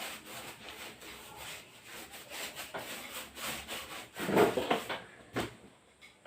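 Repeated rubbing strokes against a wooden surface, a few a second and uneven, with one louder stroke a little past four seconds and a short knock about a second later.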